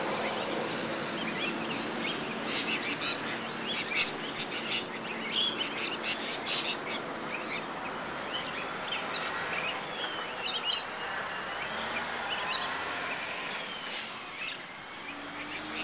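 A flock of rainbow lorikeets calling: a dense run of short, shrill chattering screeches that thins out in the second half.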